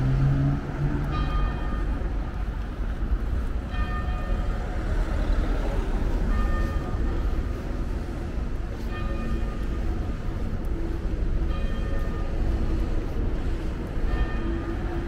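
A bell striking slowly and evenly, one ringing stroke about every two and a half seconds, over a steady rumble of city traffic.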